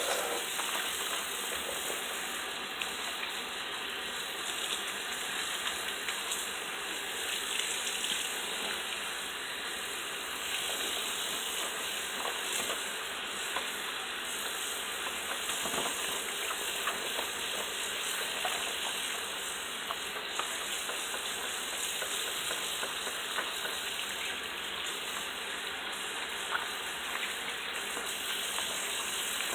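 Cold tap water running into a sink and splashing over football receiver gloves as they are washed under the stream: a steady rushing hiss.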